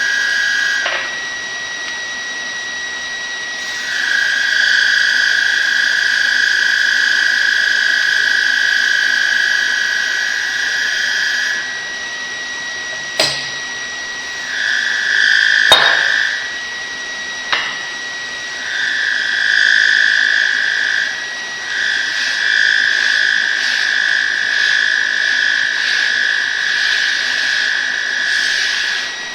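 A high-pitched mechanical whine that starts and stops in spells of a few seconds, over a steady high tone, with a few sharp clicks in the middle.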